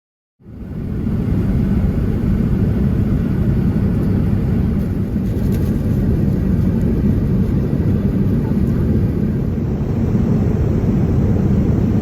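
Steady low roar of a Boeing 787-9 in flight, airflow and engine noise heard inside the cabin, fading in from silence about half a second in.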